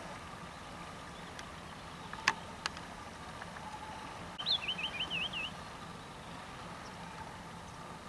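Small songbird in a birch giving one short warbling phrase of quick up-and-down notes, a little over a second long, about halfway through. Two sharp clicks come shortly before it, over a steady hum.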